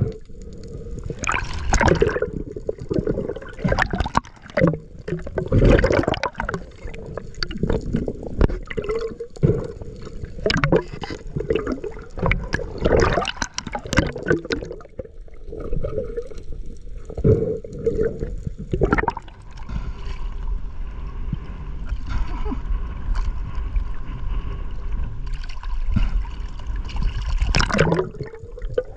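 Underwater water noise from a diving camera: water rushing, gurgling and bubbling past it in irregular surges as the diver swims and moves, settling into a steadier, quieter wash in the last third.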